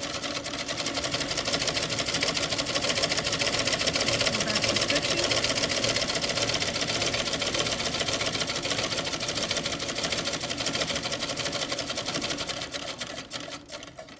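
A 1900 New Domestic treadle sewing machine sews a chainstitch from a single thread through its looper attachment. It runs with a fast, even clatter that builds up over the first couple of seconds, holds steady, then slows near the end and stops.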